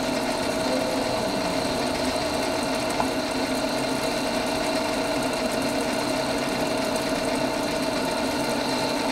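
Centre lathe running steadily: a constant mechanical hum with steady tones from the motor and gearing, and one faint click about three seconds in.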